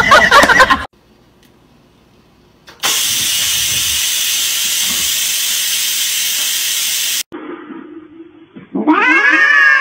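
Electric pressure rice cooker releasing steam through its vent: a loud, steady hiss for about four seconds that cuts off suddenly. Near the end a calico cat gives a loud yowl that rises and then slides down.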